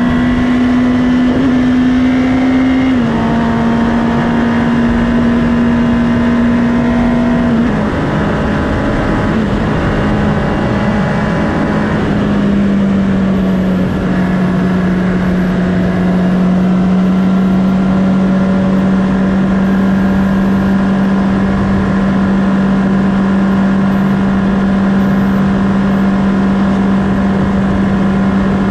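2019 Honda CB650R's inline-four engine with its stock exhaust, heard from on board at a steady cruise: the engine note holds level, drops slightly a couple of times in the first eight seconds, eases lower around the middle and then holds steady again, over constant wind rush.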